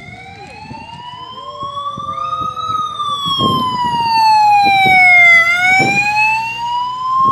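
Police motorcycle siren in a slow wail, rising and falling in pitch and growing louder as it approaches, loudest about five seconds in.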